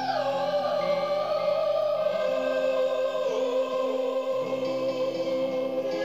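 Slow music of long, sustained notes, the upper melody line gliding down in pitch just after the start, with no percussion.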